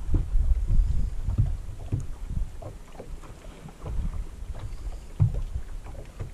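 Small waves lapping and slapping irregularly against a boat hull, with wind buffeting the microphone that is strongest at the start and then eases.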